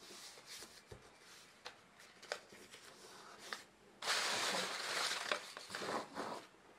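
Folded paper mini zines being handled: a few light paper taps, then about four seconds in a louder rustle of paper lasting about two seconds as the pile is pushed together and spread out.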